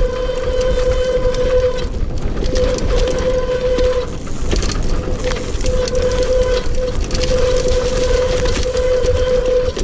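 All-terrain wheelchair rolling down a rough dirt and grass track: a low rumble from the wheels and wind, with a steady mid-pitched whine from the chair that cuts out briefly several times.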